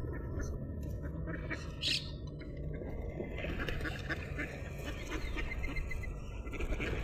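Ducks quacking, with a short call about two seconds in and fainter scattered calls after, over steady low background noise.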